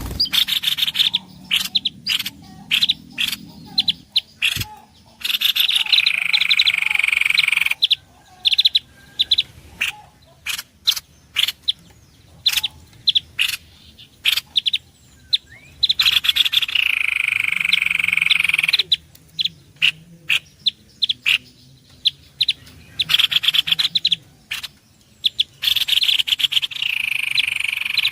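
Bird-lure (pikat) recording of small songbirds calling: rapid, sharp chip notes, broken about every ten seconds by a long rasping call of two to three seconds.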